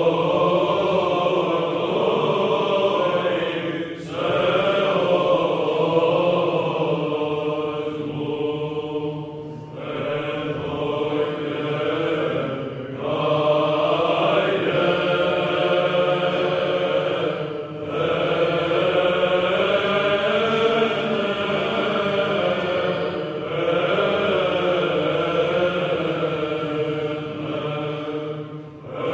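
Voices singing religious chant in long sustained phrases, each a few seconds, over a low held note, in the style of Orthodox chant.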